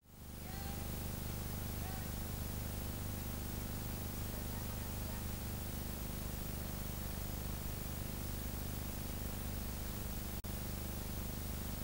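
Steady hiss with a low, many-toned hum, the noise floor of an old film soundtrack. It fades in over the first second and cuts out for an instant about ten seconds in.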